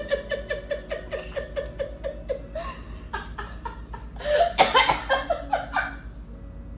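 A person laughing in a rapid run of "ha" pulses, about five a second, that fades out over the first two and a half seconds, then a second loud burst of laughter about four and a half seconds in.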